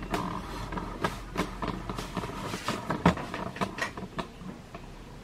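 Irregular light clicks and knocks, the loudest about three seconds in, over a low steady hum.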